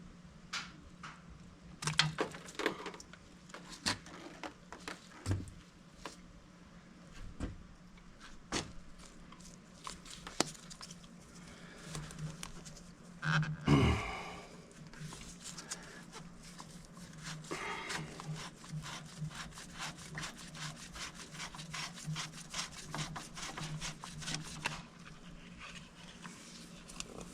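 Hand tools and metal parts clicking, knocking and scraping as the fuel filters are worked off a mini excavator, with a louder clunk about halfway through and a faint steady hum beneath.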